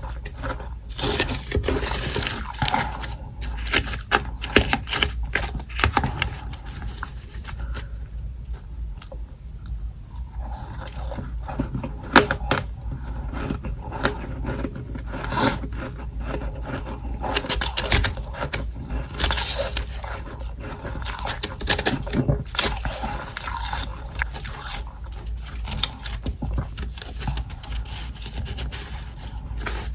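Close-miked scraping and crunching of soft freezer frost (humidifier frost), a dense run of crisp, irregular crackles with a quieter stretch about a third of the way in.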